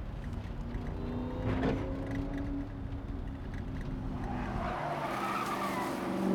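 Ford Shelby GT500's supercharged V8 engine running as the car drives at speed. About three-quarters of the way in, the tyres squeal as the car turns.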